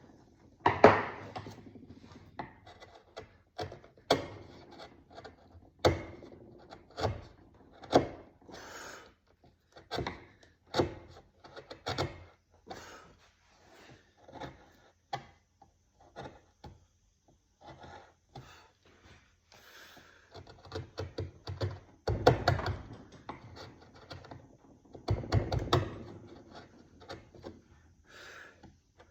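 Irregular knocks and taps of wood and hand tools, with some rubbing and scraping, as a piece of wood is carved by hand; denser, heavier knocking comes in two clusters in the second half.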